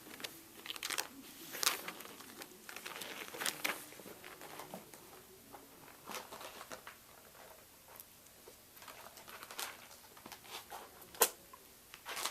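Five-week-old RagaMuffin kittens scrambling and play-wrestling, making scattered soft rustling and scratching sounds with occasional sharp ticks, the loudest tick about eleven seconds in.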